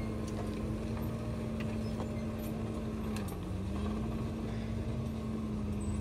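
Diesel engine running steadily, its pitch dipping briefly about three seconds in and then recovering.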